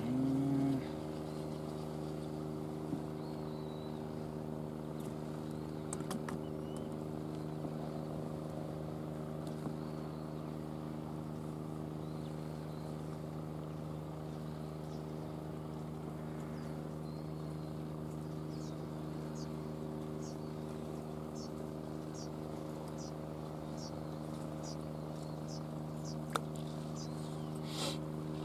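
Steady low engine hum holding several even tones, with a few faint clicks. In the second half a run of short high chirps joins it.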